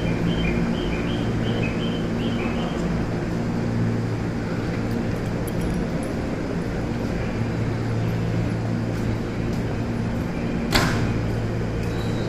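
Steady low hum of an electric train's equipment at a standstill, with its pitched drone fading and returning. A faint repeated chirping sounds in the first few seconds, and a single sharp knock comes about eleven seconds in.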